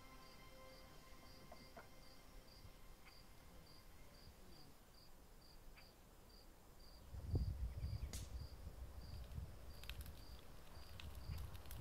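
A cricket chirping in the dark, a faint high chirp repeated evenly about three times a second. A low rumbling noise joins about seven seconds in.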